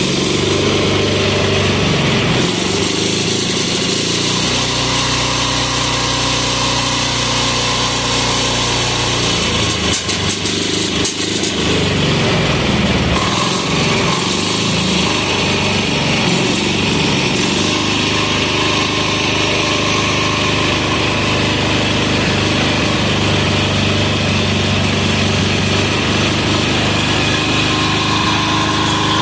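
Single-cylinder air-cooled 186FA diesel engine running on filtered waste vegetable oil. Its speed wavers up and down from about ten seconds in, then settles back to a steady run for the rest.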